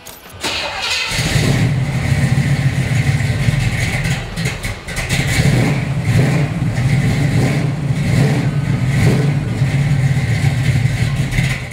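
A 1969 Camaro's 396 cubic-inch Mark IV Chevrolet big-block V8 being started: the starter cranks briefly and the engine catches about a second in. It then runs loudly through its dual exhaust, the level rising and falling a few times.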